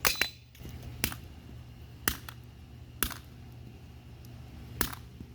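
A broken plastic Rubik's Cube being handled, giving sharp plastic clicks about once a second, six in all, with two close together at the start.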